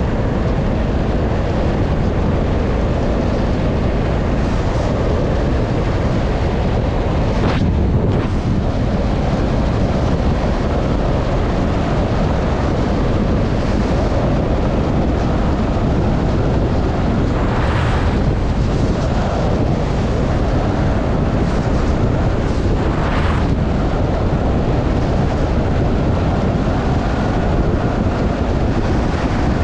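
Heavy wind rush on the microphone over the steady drone of a Honda CRF1100 Africa Twin's parallel-twin engine and tyres at cruising speed. A few short rushes of noise come about 7, 18 and 23 seconds in.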